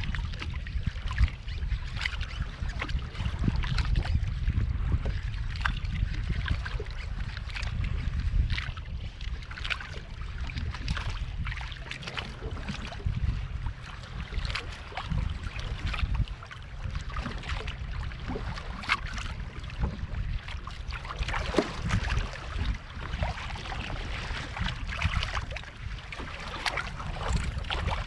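Wind rumbling on the microphone while small waves slap and trickle against a kayak hull, with scattered short clicks and knocks.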